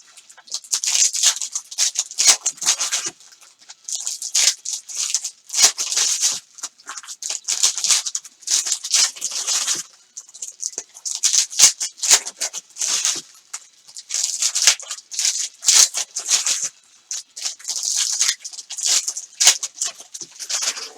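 Card pack wrappers crinkling and cards rustling as trading-card packs are opened and handled, in quick irregular bursts with short pauses between.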